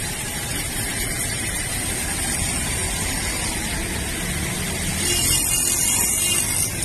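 Steady wash of rain and floodwater with motorcycle engines running low underneath. About five seconds in, the sound changes abruptly.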